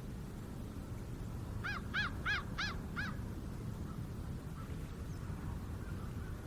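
A bird gives five quick calls in a row, each a clear, honking note that rises and falls. They start about a second and a half in and last about a second and a half. Under them runs a steady low rumble of distant traffic.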